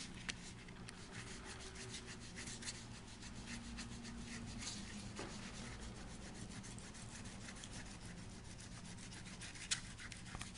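Fingertips rubbing wet paper on a dried image transfer: a faint, steady, scratchy rubbing made of many quick strokes as the softened paper pulp rolls off the image.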